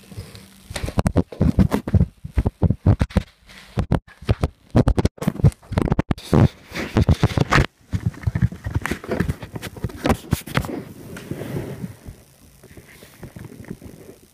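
Irregular knocks, rubs and scrapes of close handling noise on the recording device's microphone, quieter near the end.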